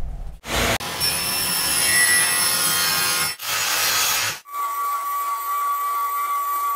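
Power saw cutting a thin luan plywood panel in short clips, the last one a Ryobi miter saw. Then, about four and a half seconds in, a spindle sander runs with a steady whine as the panel's edge is sanded.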